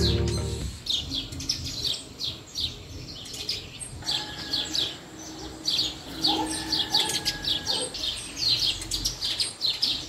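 Small birds chirping: a continuous run of short, high chirps, several a second, each sweeping downward. Background music is fading out in the first second.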